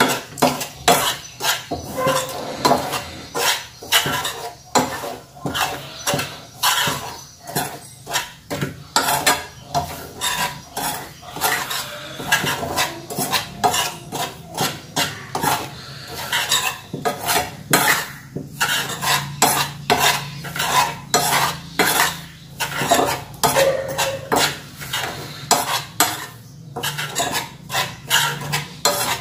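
Steel spoon stirring and scraping dry powdered rice-and-flour mix around a metal frying pan in quick repeated strokes while it dry-roasts on the stove.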